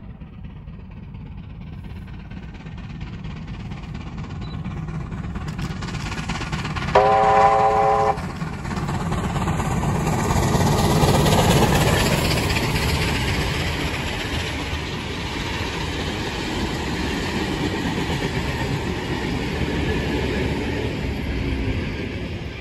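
Steam locomotive 3801, a NSWGR 38 class 4-6-2 Pacific, running with its train; the rumble grows louder to a peak about halfway through and then holds. A short whistle blast of about a second sounds about seven seconds in.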